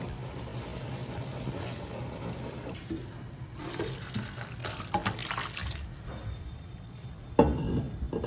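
Cooking water poured from a wok through a stainless steel colander, splashing and draining into the sink, with a loud knock near the end.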